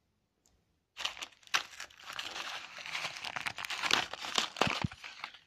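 Nestlé Smarties paper packaging being crumpled and torn open by hand: a dense crinkling and tearing that starts about a second in.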